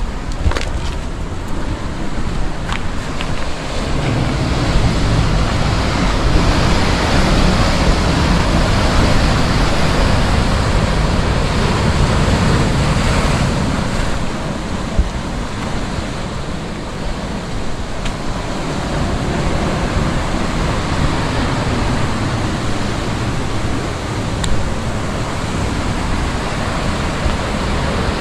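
Ocean surf washing onto a beach, a steady rushing that swells and eases, with wind buffeting the microphone.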